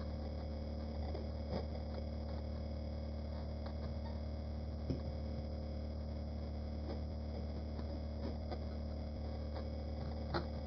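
Steady low hum with a few faint, short clicks and taps scattered through it.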